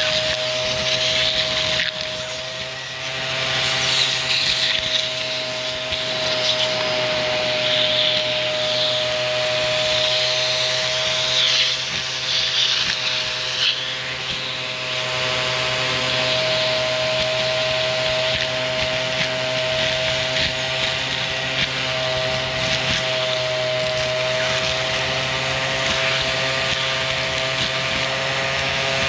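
Vacuum cleaner running steadily, its motor whining at one constant pitch, with an uneven hiss of suction that comes and goes in the first half.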